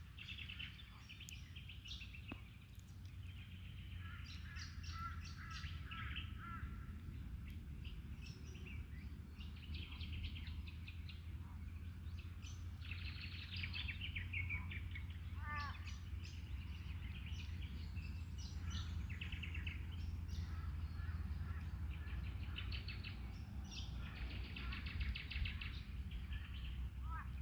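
Several wild birds chirping, trilling and calling back and forth, with one call sliding downward about halfway through, over a steady low rumble.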